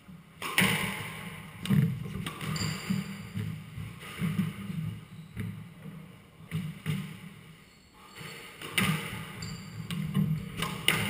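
Squash ball being struck by rackets and smacking off the court walls, sharp hits at irregular intervals of about one to two seconds, with a couple of short squeaks of court shoes on the wooden floor.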